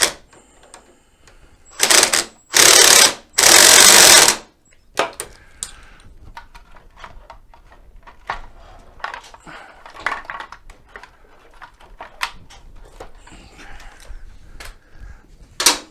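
Power tool with a 13 mm socket running in three short bursts about two to four seconds in, driving home a bolt freshly coated with threadlocker. Scattered light clicks and taps of tools and metal parts follow.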